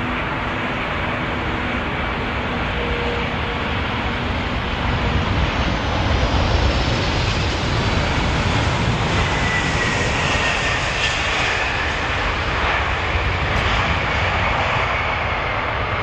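British Airways Boeing 747-400 on landing, its four Rolls-Royce RB211 turbofans passing close by: a steady jet roar that builds to its loudest about six seconds in. A faint high whine slides down in pitch as it passes, and the roar carries on as the jet rolls out on the runway.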